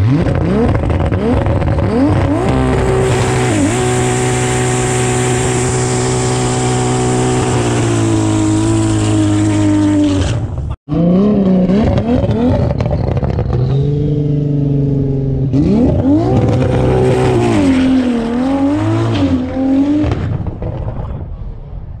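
Toyota Cressida's 2JZ straight-six revving up and held at high, steady revs for several seconds while the rear tyres spin in a burnout. It cuts off abruptly about eleven seconds in, then the engine revs up again, holds, rises and falls, and fades near the end.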